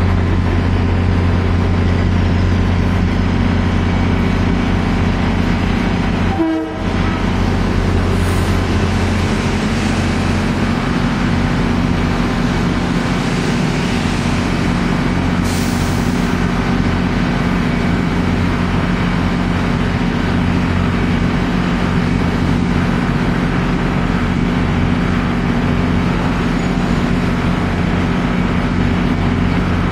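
Metro-North M2 electric multiple-unit train running at the platform, a loud, steady drone with a constant low hum. It drops out briefly about six and a half seconds in.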